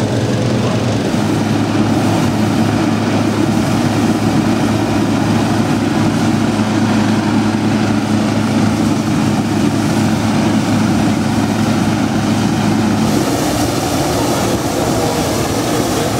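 Petrol-engined hot-air balloon inflator fans running steadily, blowing air into the envelopes. About three seconds before the end a propane burner starts firing, a rushing blast over the engine hum.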